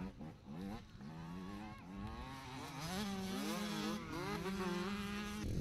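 Motocross bike engine revving on a dirt track, its pitch climbing and dropping again and again as the throttle is worked, growing louder toward the end.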